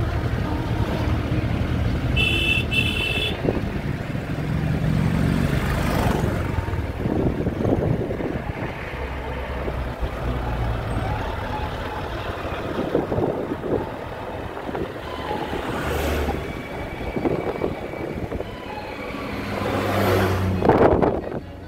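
Road noise of a moving vehicle on a mountain road, a steady engine and tyre rumble, with a short horn beep about two seconds in. A few sharp thumps come through, the loudest near the end.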